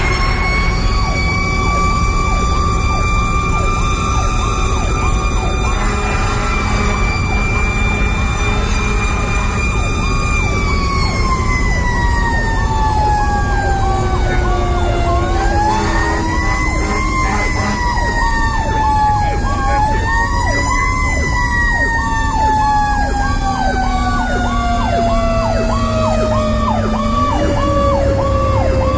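Fire truck siren wailing from inside the cab: its pitch sinks slowly, swells back up twice midway and again at the end, over a second siren tone pulsing rapidly and the truck's engine running.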